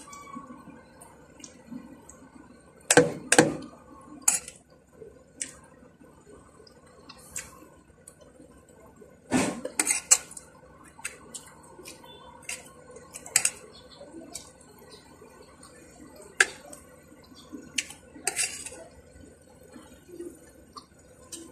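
Metal spoon clinking and scraping against a plate as rice and food are scooped up, in scattered sharp taps, loudest about three seconds in and again around nine to ten seconds in. Soft chewing fills the gaps.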